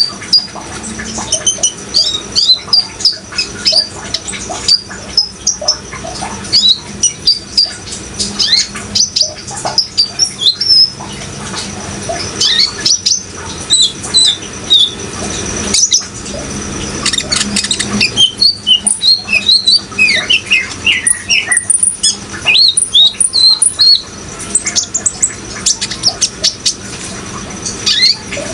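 Sunbird ('kolibri ninja') singing energetically, a rapid run of high, sharp chirps and short trills with few pauses, over a steady background of running water.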